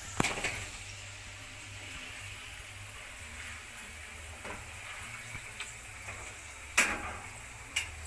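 Hot oil sizzling steadily in a pan of frying chips, with metal spoons clinking and knocking against the pans as the chips are lifted out and stirred into the sauce. The sharpest knock comes about seven seconds in, with another a second later.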